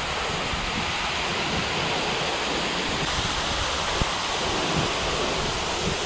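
Véu da Noiva waterfall up close: a tall fall of water pouring down a rock face in a loud, steady rush, with some low buffeting on the microphone.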